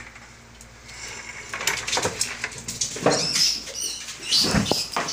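Cornered rat squeaking in distress a couple of times in the second half, among knocks and rustling as objects in the corner are shifted.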